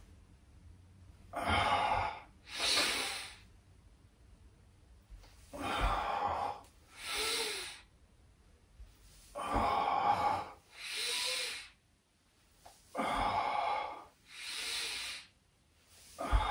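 A man breathing hard with the effort of slow leg lifts: four pairs of loud breaths, coming about every four seconds.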